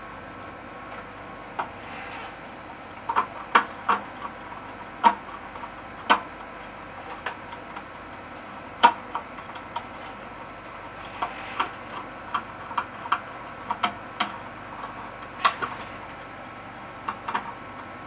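Scattered, irregular clicks and taps of a small screwdriver and wires at an alarm panel's screw terminals and metal enclosure, over a steady background hiss.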